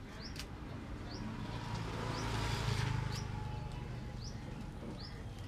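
A passing vehicle whose noise and low hum swell to a peak about halfway through, then fade. Over it a bird repeats a short rising chirp roughly once a second.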